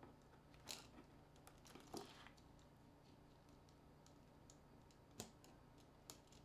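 Faint, sharp clicks and a brief scrape of small hand tools working on an ASUS ZenFone 3 smartphone as it is taken apart, four louder clicks spread through, over a low steady hum.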